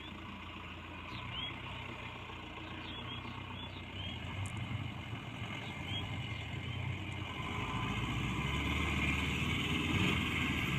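Diesel engine of a Mahindra pickup running, growing louder over the last few seconds.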